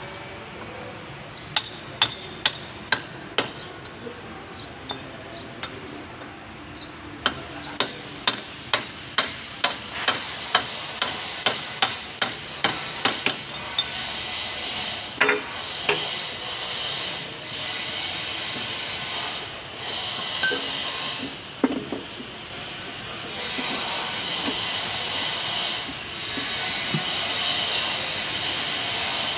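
Sharp metal-on-metal taps, about two a second in two runs, as a steel tube drift is struck to drive the front axle oil seal home on an Iseki tractor's axle housing. A steady hiss comes in about a third of the way through and grows louder near the end.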